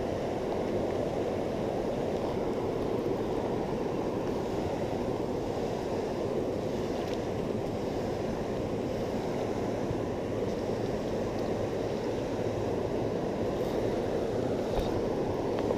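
Steady rush of flowing river water, an even noise with no rhythm, with a faint tick near the end.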